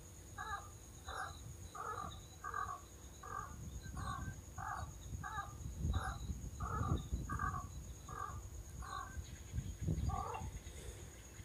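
A bird calling a long, even series of harsh, crow-like notes, about three every two seconds, stopping near the end after one last note, over a low rumble.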